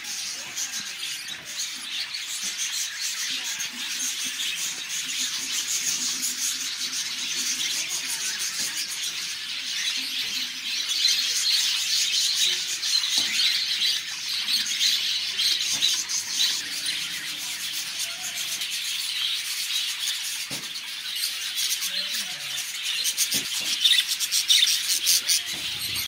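Budgerigars chirping and squeaking without pause in high, thin calls, with louder bursts of squeaks about eleven seconds in and near the end.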